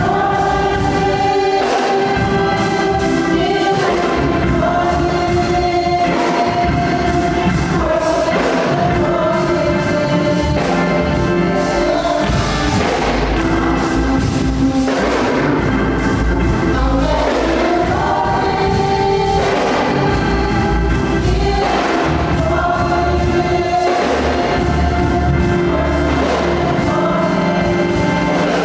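Gospel choir singing with instrumental accompaniment, voices holding long, sustained notes.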